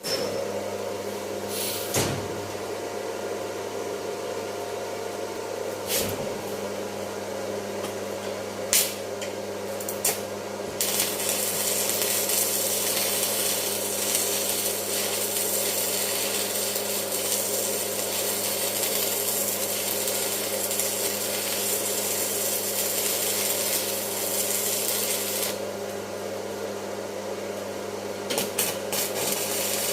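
Arc welding: a steady electrical hum throughout, a few sharp clicks in the first ten seconds, then about fifteen seconds of continuous crackling hiss that stops a few seconds before the end, followed by a few more clicks.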